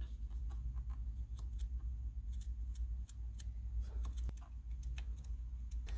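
Faint scratchy ticks and small clicks of a marker pen marking the steering wheel hub and stud, scattered irregularly over a low steady hum.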